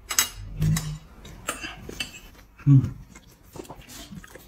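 People eating steamed buns: scattered small clicks and chewing mouth sounds, with two short low hums about a second in and past the middle.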